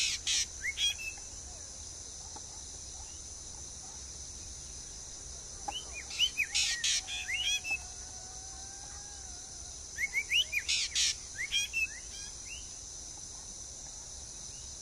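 A songbird singing three short bursts of quick chirping notes, several seconds apart, over a steady high buzz of insects.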